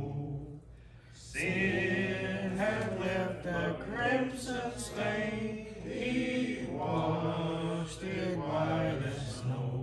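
Church congregation singing a hymn in slow, held notes, with a short pause for breath about a second in.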